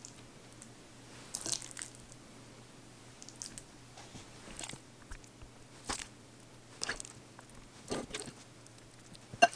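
Metal spoon scooping mashed sweet potato from a glass bowl and spooning it into a muffin tin: soft squishes with light clinks and scrapes of the spoon, about one a second, the sharpest click near the end.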